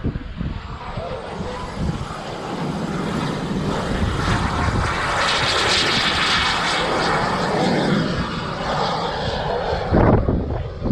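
Model jet's small kerosene-burning turbine engine flying past: a jet rush that swells to its loudest about halfway through, then fades. A brief low thump comes near the end.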